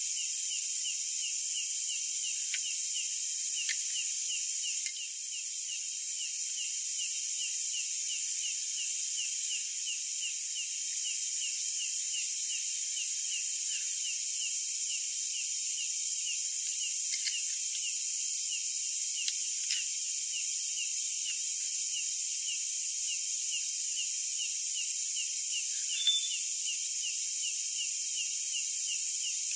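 Night insect chorus: a steady high trill with a short falling chirp repeating rapidly over it. A few faint light clicks, the clearest near the end.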